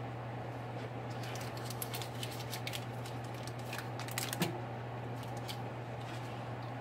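Small clicks and taps of items being handled at a kitchen counter, with one sharper knock a little past the middle, over a steady low hum.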